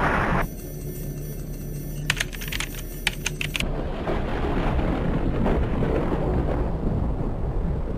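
Animated sound effects: a loud flight noise cuts off about half a second in, giving way to a low steady hum with a quick run of clicks, then a low rumble through the rest.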